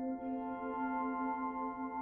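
Slow ambient background music of long, held ringing tones, with a new chord coming in a moment after the start.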